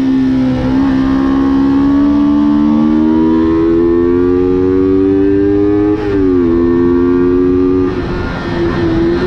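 High-revving small motor with a strong whine that climbs slowly in pitch, drops sharply about six seconds in, then holds fairly steady, as the machine carrying the camera speeds along the track.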